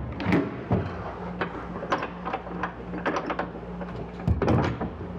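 Hardware being handled and fitted: a run of irregular short clicks and knocks, with a faint steady hum beneath from about a second in.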